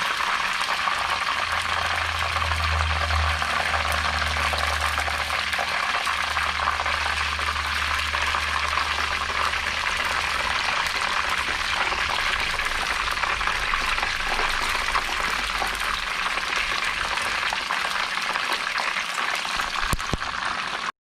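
Chicken egg rolls deep-frying in hot oil, a steady loud sizzle, with a low hum underneath for the first several seconds.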